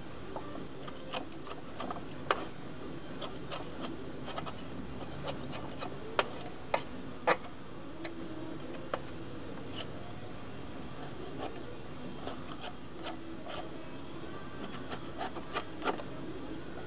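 Flat metal scraper scraping caked dried grass clippings off the underside of a metal lawnmower deck. It makes irregular scrapes and sharp clicks, with a few louder strokes through the middle.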